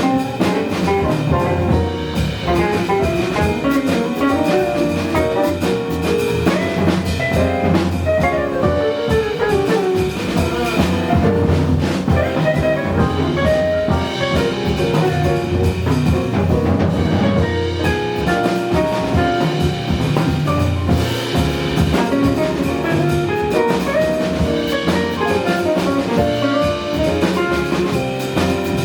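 Small live jazz band playing, with drum kit, bass and piano under a moving melodic lead line.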